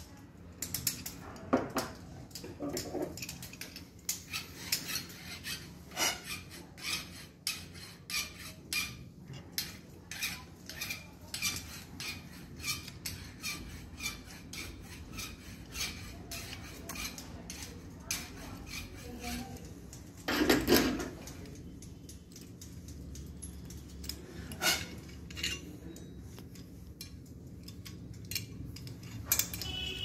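Copper tube flaring tool being worked by hand: a steady run of small metallic clicks, about two a second, as the handle turns the cone down into the clamped copper pipe to form the flare. A single louder, brief sound comes about two-thirds of the way through.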